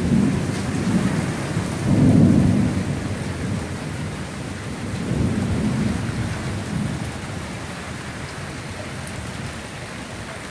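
Thunder rolling in several swells, loudest about two seconds in with another around five to six seconds, then dying away, over the steady hiss of rain mixed with small hail.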